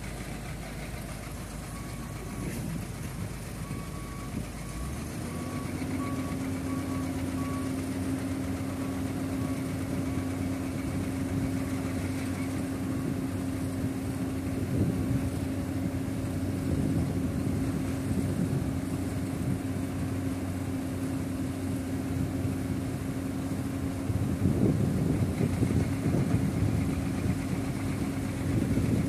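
Komatsu PC200 excavator's diesel engine running steadily as the machine crawls up onto a flatbed truck, settling into an even hum about five seconds in. A few knocks come through, louder near the end.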